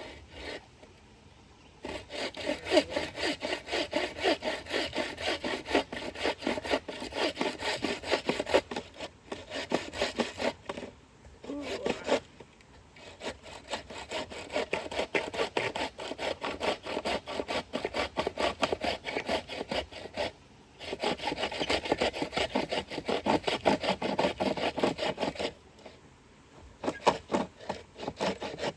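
Hand saw cutting through a log of green firewood in fast back-and-forth strokes, stopping briefly several times and pausing near the end before starting again.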